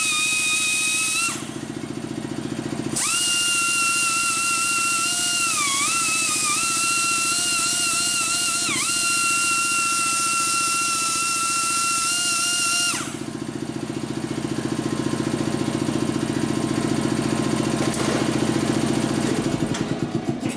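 A die grinder whines at high speed. It stops for a moment near the start, starts again, sags briefly in pitch twice as it is pressed into the work, then stops about two-thirds of the way through. A steady low hum runs underneath throughout.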